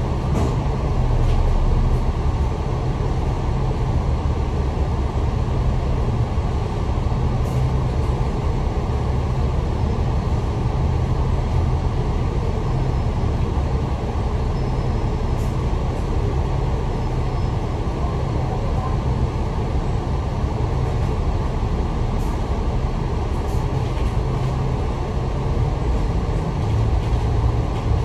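Steady drone inside a Citybus bus in service: engine and road noise mixed with loud air-conditioning, with a few faint clicks now and then.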